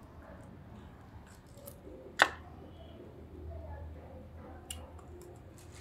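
Close-miked eating sounds: wet chewing and small mouth clicks while biting meat from pepper soup eaten by hand, with one sharp click about two seconds in that stands out as the loudest sound.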